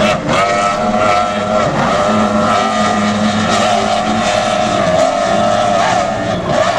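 Speedboat engine sound effect: a loud, steady motor drone at a held pitch that wavers slightly.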